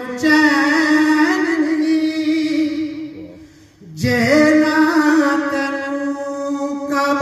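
A man singing devotional poetry unaccompanied, holding long notes. His voice fades out about three seconds in and comes back strongly about a second later.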